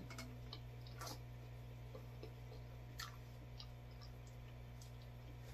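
A person chewing pizza close to the microphone: faint, scattered wet mouth clicks and lip smacks, over a steady low hum.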